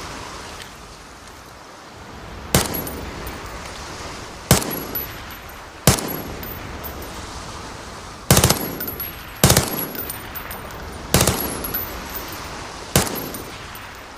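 Scorpion submachine gun firing seven short bursts a second or two apart, each trailing off in an echo, over a steady wind-like hiss.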